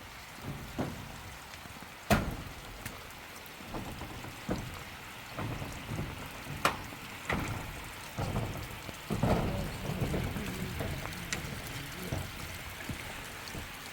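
Steady rain falling, with scattered sharp knocks and taps over it.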